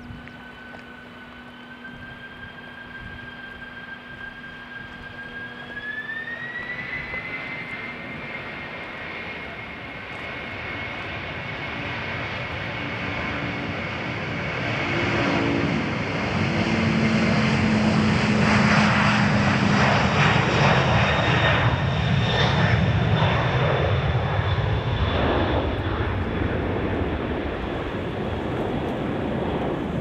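Boeing 767 twinjet's engines spooling up to takeoff thrust: a whine rises in pitch about six seconds in. The jet noise then grows steadily louder as the airliner rolls past on its takeoff run, and it eases only slightly as the aircraft climbs away.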